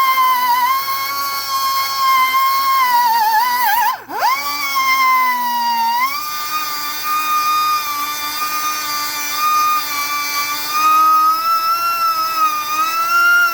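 Air-powered rotary polishing tool whining at high speed as its pad works a geode. About four seconds in, the pitch drops sharply and recovers, then holds a little higher.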